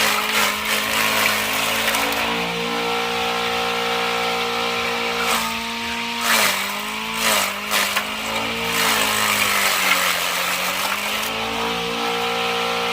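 Motor-driven forage shredder running steadily while kangkong is fed through and chopped. Its hum sags in pitch a few times around the middle as the load comes on, with some short crackling from the stalks being cut.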